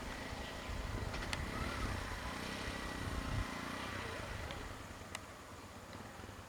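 Vehicle engine running with a low rumble that drops away about three and a half seconds in, with a few faint clicks.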